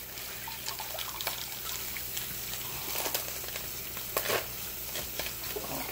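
Hands sorting wet turnip greens in a sink of soaking water: leaves rustling and water splashing lightly, with scattered small clicks and splashes, a couple of them louder about three and four seconds in.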